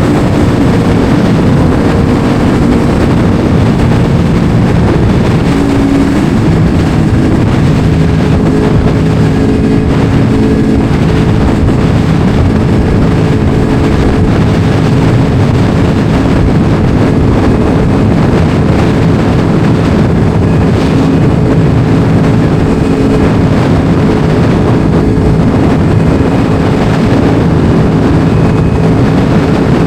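Yamaha R1 sport bike's inline-four engine running at a steady cruise while riding, with a slight change in engine note about eight seconds in. Wind buffets the microphone.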